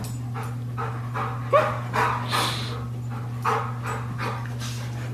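Golden retriever panting hard and fast, about two to three breaths a second, as it rocks on an exercise ball, with a short squeak about one and a half seconds in.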